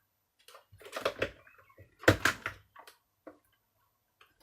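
Plastic parts of a Miele vacuum cleaner knocking and clicking as they are handled and pushed into place during reassembly. A cluster of knocks comes about a second in, the loudest knocks just after two seconds, and a single faint click about three seconds in.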